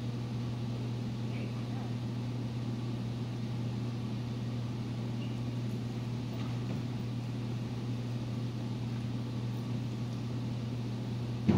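Steady low hum, unchanging throughout, with a sudden loud thump right at the very end.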